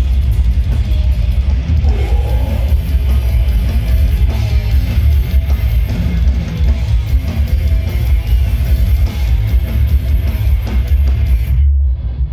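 Metal band playing live through a big stage PA, heard from the crowd: distorted electric guitars, a pounding drum kit and a heavy low end. Near the end the music cuts off abruptly, leaving only a low rumble.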